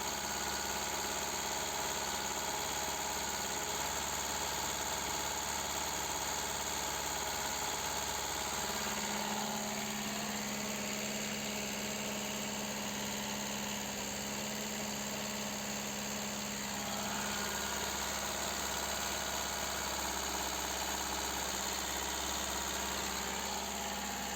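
Seat Ibiza 1.4 petrol four-cylinder engine running steadily at a raised speed of about 2000 rpm with the car standing still. This is an engine being diagnosed for a misfire on cylinder two. The note shifts slightly about nine seconds in.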